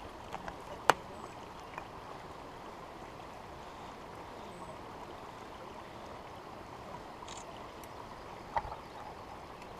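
Steady rush of flowing water, with a sharp click about a second in and a softer knock near the end.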